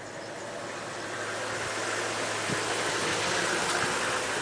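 A safari vehicle's engine running with a steady low hum, under a hiss of noise that grows gradually louder.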